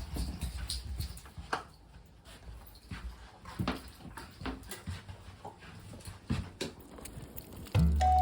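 Miniature dachshunds moving about close by: scattered soft taps and rustles. Background music begins near the end.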